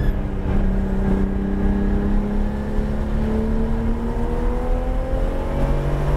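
Porsche 911 GT3 RS flat-six engine heard from inside the cabin, pulling under full acceleration with its pitch rising steadily. Near the end an upshift drops the pitch before it starts climbing again.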